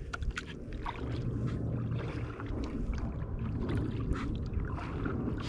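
Kayak paddling on calm water: the paddle blades dipping and dripping in small irregular splashes and trickles, over a steady low rumble.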